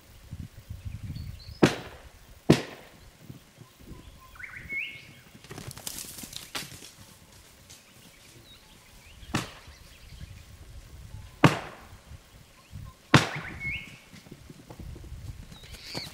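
Five sharp thuds a few seconds apart, with a rustling spray of dirt kicked from the hollow tree trunk where feral piglets are hiding. Birds chirp briefly in between.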